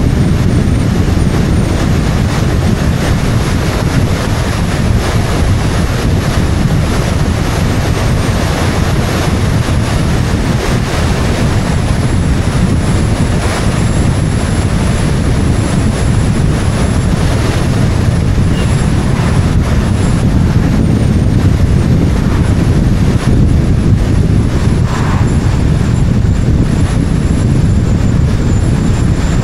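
Wind rushing over the microphone of an action camera mounted on the outside of a car at speed, with tyre and road noise beneath: a steady, loud, deep rumble with a faint high whistle on top.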